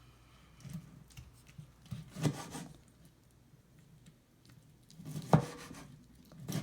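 Kitchen knife dicing tomatoes on a cutting board: soft scrapes and light taps, with two louder knocks of the blade on the board about two seconds and five seconds in.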